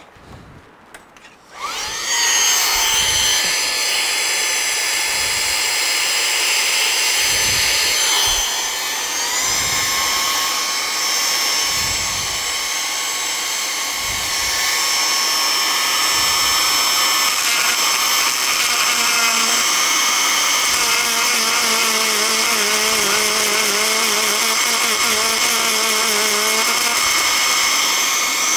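High-speed electric rotary grinder whining steadily as it grinds down a dented corner of the tablet's metal frame. It spins up a couple of seconds in and steps up in pitch around nine seconds. A wavering lower tone joins from about nineteen to twenty-seven seconds.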